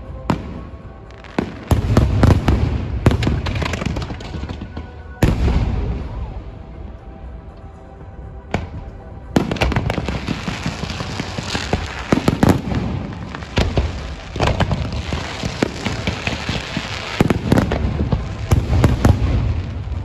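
Fireworks going off: repeated sharp bangs of bursting shells with a deep rumble, then a long dense stretch of crackling and popping through the middle.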